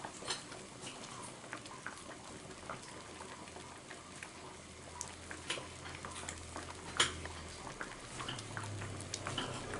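Coconut milk heating in an aluminium wok, not yet at the boil: a faint low hiss with scattered small ticks and pops. The sharpest ticks come about five and seven seconds in.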